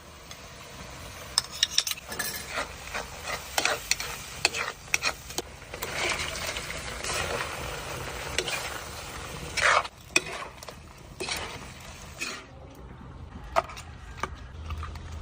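Food sizzling in a frying pan while a utensil stirs and scrapes in it, with scattered knocks of the utensil on the pan and one louder clack about ten seconds in.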